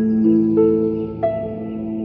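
Background music: calm, slow music of held notes that change pitch every half second or so.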